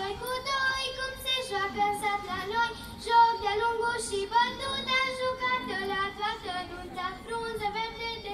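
A group of women singing a Romanian folk song together in high voices, in sustained, ornamented phrases.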